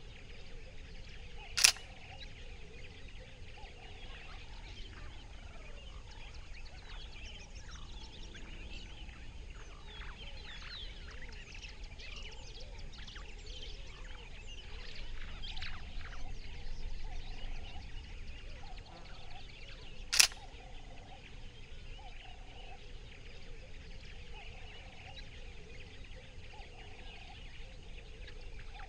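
Birds chirping and calling in dry bush, with a short call repeating about once a second and a livelier burst of chirps midway. Two sharp single clicks stand out above it, about 18 seconds apart: a camera shutter firing.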